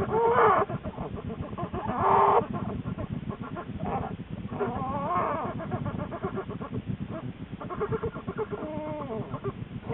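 Newborn black bear cubs squealing: several short wavering calls that rise and fall in pitch, over a fast low pulsing.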